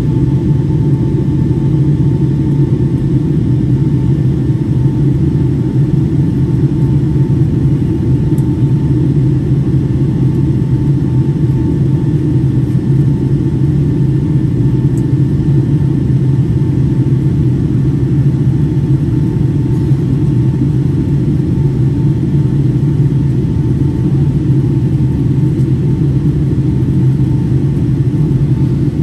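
Steady in-flight cabin noise of a Boeing 757-200, heard from a window seat over the wing: a constant loud rush of airflow and engine drone, with a faint steady whine on top.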